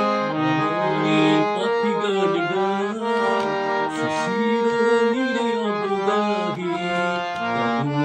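Three-reed scale-changer harmonium with antique Paris reeds being played: a melody of changing notes on the keyboard, held on a continuous tone as the bellows are pumped.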